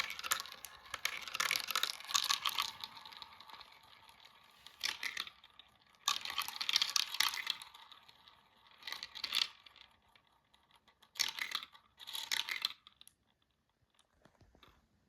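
Marbles rolling and clattering down a small marble run track: several bouts of fast rattling clicks, the longest in the first few seconds, stopping about thirteen seconds in.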